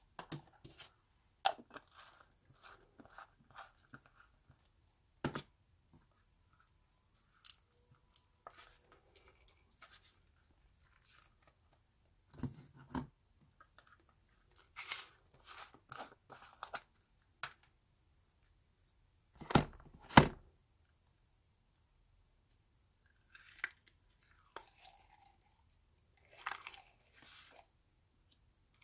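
Small polystyrene foam beads crackling and rattling as they are scraped out of plastic jars with a plastic spoon into a plastic tub of slime, with the plastic jars being handled. Scattered crackles and clicks with quiet gaps, a few sharper knocks, and the loudest two knocks close together a little under twenty seconds in.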